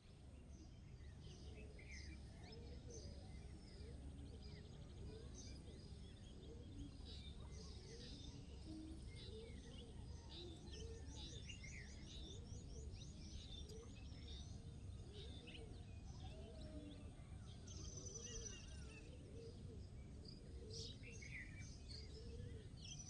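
Several birds chirping and calling at once, faint, with short high overlapping notes and a quick run of repeated notes about halfway through. A steady low rumble lies underneath.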